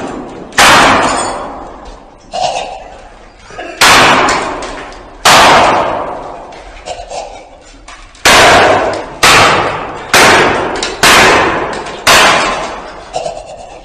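A series of eight loud bangs, each ringing out and fading over a second or more, echoing off the hard walls of a stairwell.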